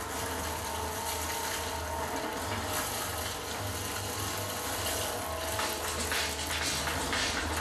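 A film soundtrack playing from a Samsung LA40A650A1R LCD TV's speakers and picked up in the room: steady splashing, rushing water with a low hum underneath.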